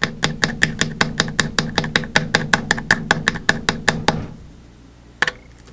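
A variable-speed drill runs with a steady motor hum and a regular clicking, about seven clicks a second. It stops after about four seconds, and a single click follows near the end.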